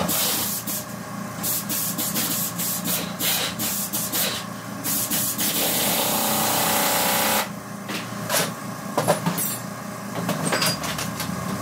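Hand tools scraping, rubbing and clinking on the metal of a bare engine block and cylinder head. A steady rasping stops about seven seconds in, leaving scattered sharp metal clicks and knocks.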